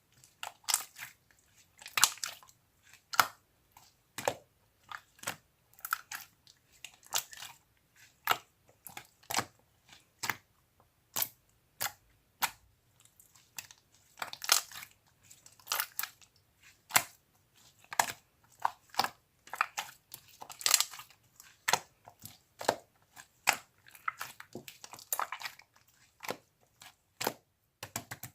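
A series of sharp, crisp crunching clicks, irregular, about one or two a second with some quick clusters.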